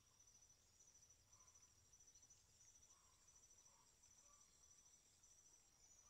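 Near silence with faint, high-pitched insect chirping: a thin trill that pulses in short, evenly repeating runs.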